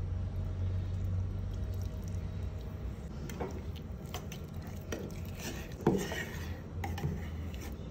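Metal spoon stirring sugar and lime juice in an enamel mug, scraping the inside with a few light clinks.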